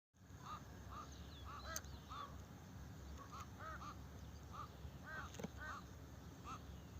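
Several crows cawing: short calls in quick pairs and threes, repeated throughout and sometimes overlapping, over a steady low rumble. Two sharp clicks sound, one near the start and one past the middle.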